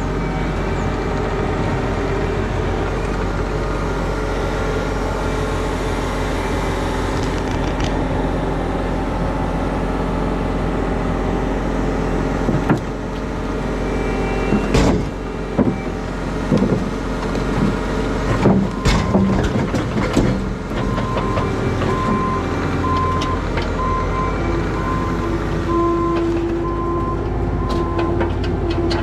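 Diesel engine of compact earthmoving equipment running steadily, with a run of knocks and clanks about halfway through as the machine works debris. Near the end a backup alarm beeps in even pulses.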